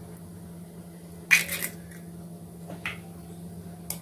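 Eggshells crackling as eggs are broken by hand over a ceramic plate: a short crunch about a second in, a lighter crackle later, and a sharp click near the end.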